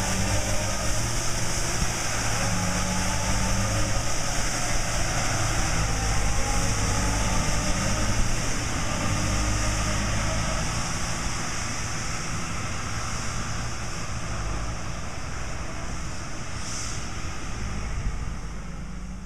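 Elgin Pelican mechanical street sweeper running steadily, its engine hum under the continuous hiss of its brooms brushing the pavement. It grows gradually fainter as the sweeper moves off down the street.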